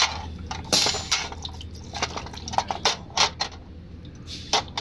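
Metal parts of a dismantled CAV diesel injector clinking and splashing as they are rinsed in a basin of fluid, with dripping, over a steady low hum.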